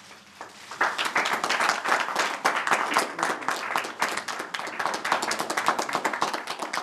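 A small group of people clapping, starting about a second in.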